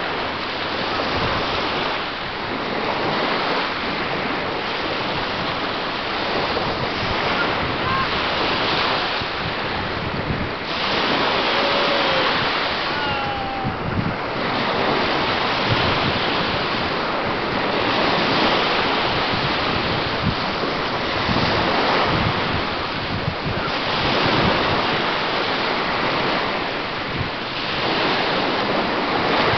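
Small Lake Michigan waves washing onto a sandy beach, swelling and fading every few seconds, with wind buffeting the microphone.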